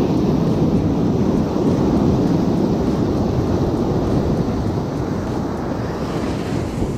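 Sea surf breaking and washing up the sand around the angler's feet, with wind buffeting the microphone in a steady low rumble that eases slightly toward the end.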